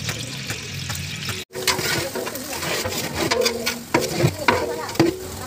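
Sliced onions sizzling and frying in hot oil in a large metal pot, with the scrapes and knocks of a ladle stirring them. The sound cuts out briefly about a second and a half in, then comes back louder and more crackly.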